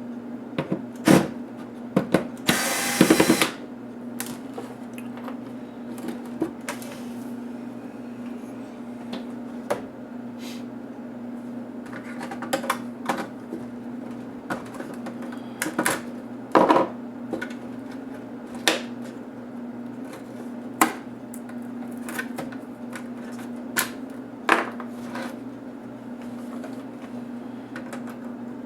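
Laptop being taken apart by hand: scattered clicks, taps and knocks of screws, a screwdriver and plastic case parts being handled, with a short whir of a small electric screwdriver about three seconds in. A steady low hum runs underneath.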